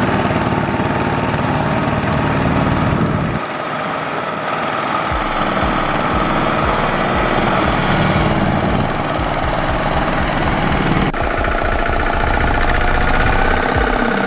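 Two-wheel walking tractor's single-cylinder diesel engine thudding rapidly and steadily under load, pulling a loaded rice trailer through deep mud. The sound changes abruptly about three seconds in and again near the end.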